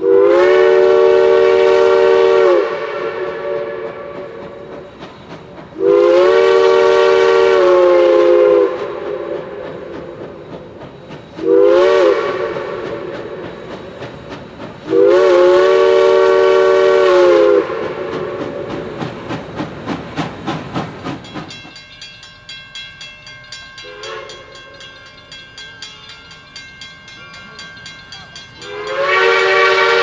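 Steam locomotive's chime whistle blowing a chord of several notes in the long, long, short, long pattern that signals a grade crossing. A softer sounding follows, and another long blast begins near the end, with the train's clatter on the rails between blasts.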